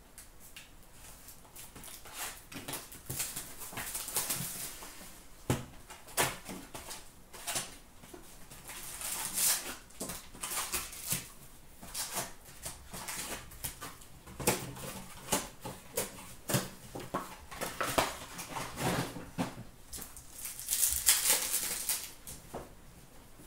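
Foil card packs and a cardboard hobby box being handled and unpacked. The wrappers crinkle and the cardboard rustles in irregular bursts, with scattered sharp clicks and taps.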